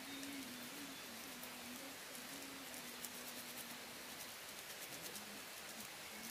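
Even outdoor hiss with a faint low tone that wavers in pitch and breaks off a few times.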